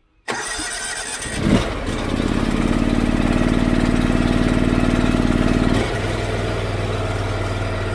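Cold start of a Honda IGX800 EFI V-twin engine. The starter cranks for about a second, then the engine catches and revs up and runs at a fast idle. About six seconds in it drops to a lower, steady idle.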